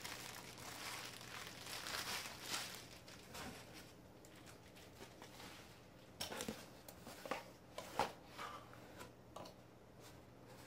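Plastic bubble wrap crinkling and rustling as it is handled for the first few seconds, then a quieter stretch with scattered rustles and light knocks of cardboard packaging.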